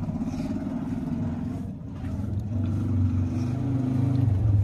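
An engine running with a low, steady hum that shifts slightly in pitch a little past the middle.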